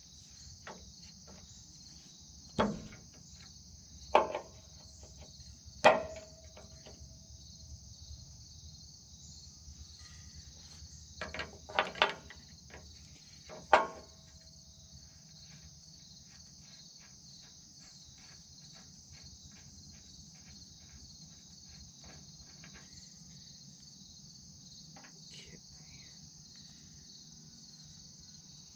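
A large steel wrench clanks against the loader's hydraulic fittings and frame: about seven sharp knocks, a cluster of them around 11–12 s, several ringing briefly. Insects keep up a steady high chirring throughout.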